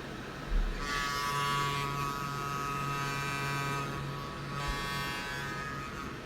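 A small electric motor buzzing steadily with a whine. It starts with a bump about half a second in and dips briefly near two-thirds of the way through.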